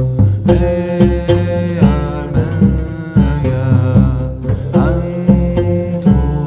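Background music with a steady beat about twice a second under sustained melodic lines.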